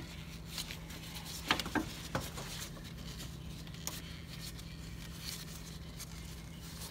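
Faint rustling and a few small clicks and scrapes from a gloved hand working a slackened serpentine belt off the alternator pulley, over a steady low hum.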